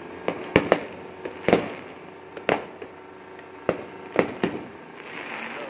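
Fireworks bursting overhead: about ten sharp bangs at irregular intervals, the loudest in the first two seconds. A steady background of noise runs between them and swells near the end.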